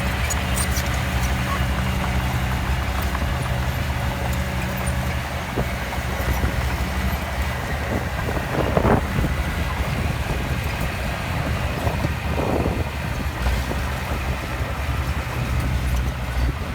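Heavy diesel engine of earth-moving machinery running steadily, with two brief louder noises about nine and twelve and a half seconds in.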